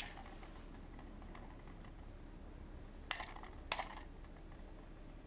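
Two short, sharp clicks about half a second apart, a little after three seconds in, over a faint steady hiss: a computer's controls being clicked and tried on a machine that won't work.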